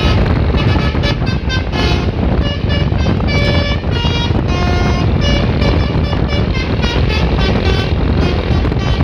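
Bus telolet horn playing a fast melody of short, changing-pitch notes over a loud, steady low rumble.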